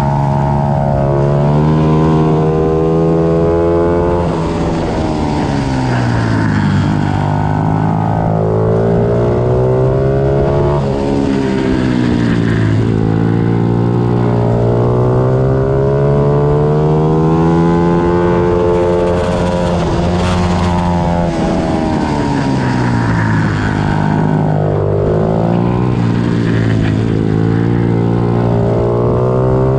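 Small 90 cc pit bike engines racing: the engine note climbs as the bikes accelerate, then drops every few seconds as they back off for corners, at times with more than one bike heard at once.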